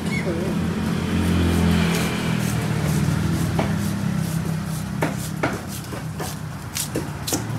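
A knife scraping scales off a milkfish on a wooden chopping block: a run of sharp scraping strokes from about three and a half seconds in, coming faster towards the end. A steady low engine hum runs underneath.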